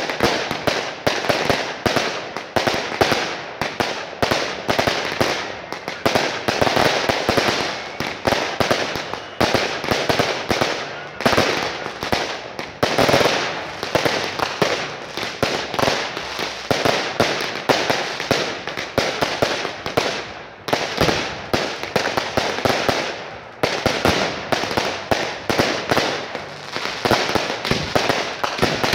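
Fireworks going off in a dense, continuous barrage: many sharp bangs and crackling bursts each second, with brief lulls about two-thirds of the way through.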